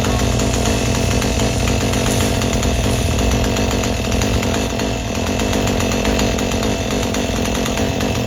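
Chainsaw running steadily and loudly with no break, at work on an oak tree.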